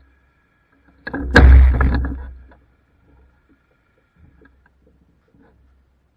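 A loud thump with a rumble about a second in, fading out over about a second and a half, over a faint low hum.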